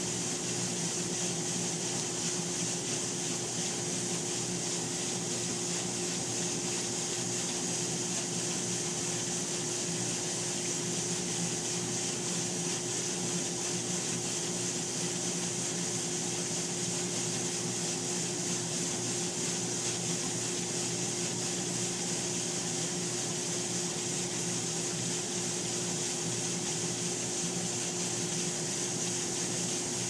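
Hobart commercial dishwasher running its wash cycle: a steady hum with one held tone over a hiss.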